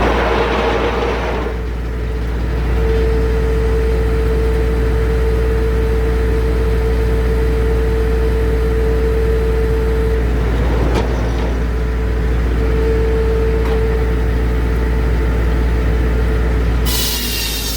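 Circular sawmill running with a steady whine from the spinning blade over a low machine hum. There is a short rush of noise at the start and another about eleven seconds in, and a harsher, hissier sound sets in near the end.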